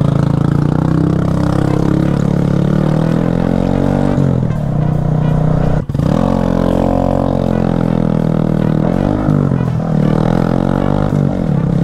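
Honda Grom's 125 cc single-cylinder engine riding off, its note rising and falling as it revs up and eases off through the gears, with a brief drop about six seconds in.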